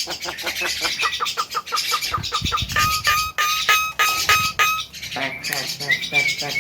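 Javan myna calling: a fast run of short chattering notes, then about eight clear notes repeated evenly on one pitch, and a short rising whistle near the end.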